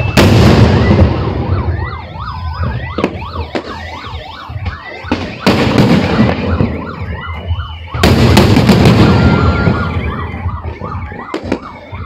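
Fireworks display: aerial shells burst with a loud boom at the start, about five seconds in and again about eight seconds in, each followed by a crackling tail. Between the bursts a whistling tone rises and falls over and over, a few times a second.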